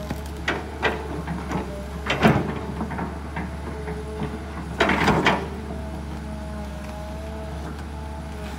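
Kobelco SK200 hydraulic excavator's diesel engine running steadily with a faint wavering whine while the bucket digs out a tree stump. Sharp knocks and cracks from the bucket, roots and soil come in the first couple of seconds, with the loudest about two seconds in, and a tight cluster of them about five seconds in.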